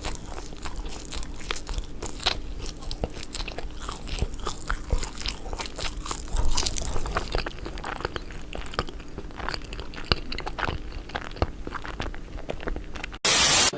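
Close, irregular crunching, like someone chewing crisp food, over a steady low hum. Near the end there is a short, loud burst of hiss-like noise.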